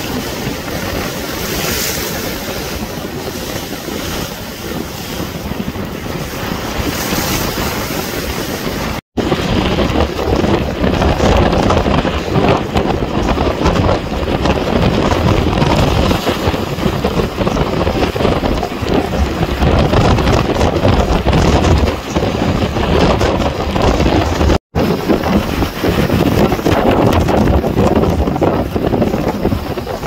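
Strong gusty wind buffeting the microphone, over storm-driven lake waves surging against and washing over a concrete seawall. The sound drops out for an instant about nine seconds in and again near twenty-five seconds, and after the first drop the low wind rumble is much louder.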